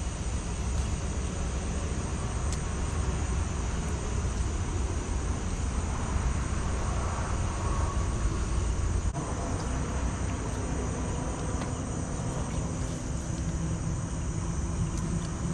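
Steady chirring of night insects such as crickets, over a low rumble that drops away about two-thirds of the way through.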